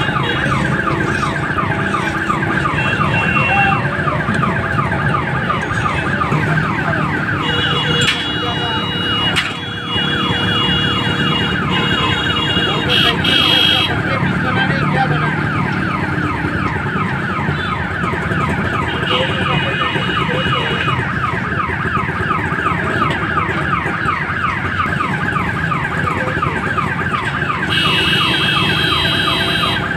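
Car alarm sounding without a break, a rapid warbling siren of about four sweeps a second. Higher steady tones join it for a few seconds at a time, three times.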